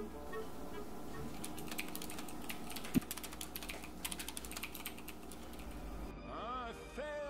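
Fast typing on an Apple MacBook laptop keyboard, a quick patter of key clicks from about a second in until about five seconds in, with one louder knock in the middle. Music plays underneath, with gliding tones near the end.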